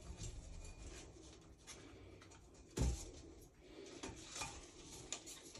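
A pipe fitting rubbing and knocking against a cast iron soil pipe stack as it is worked into place by hand, with one heavy thud about three seconds in.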